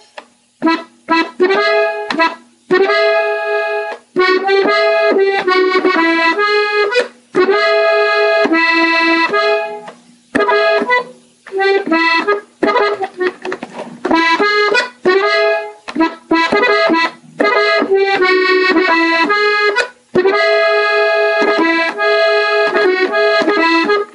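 Gabbanelli three-row button accordion played slowly on its treble buttons: short ornamental melody phrases repeated several times, with brief pauses between them.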